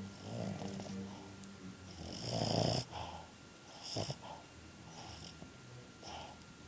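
Boston Terrier snoring in its sleep: rough, noisy breaths, the loudest a little over two seconds in, with weaker ones following every second or two.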